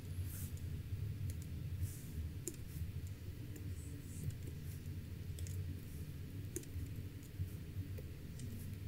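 Scattered light clicks of computer input over a low steady hum.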